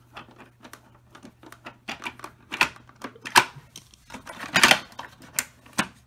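Irregular clicking and tapping as hands and a screwdriver work on the plastic housing of a Hoover WindTunnel upright vacuum to remove its hood screws. A run of louder knocks comes about two and a half to five seconds in.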